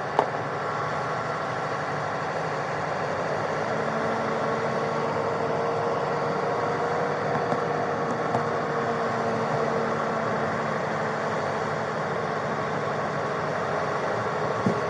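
A vehicle engine idling steadily with a constant rumble and hiss and a faint held tone; a small click just after the start.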